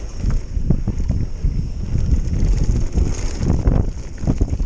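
Wind buffeting a GoPro's microphone during a fast mountain-bike descent, over a steady rumble of knobby tyres on packed dirt. Short knocks and rattles come from the bike as it runs over bumps.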